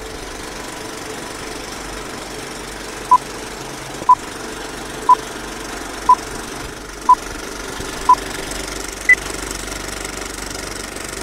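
Vintage film-projector rattle running steadily under a countdown leader's beeps: six short beeps one second apart, then a single higher-pitched beep.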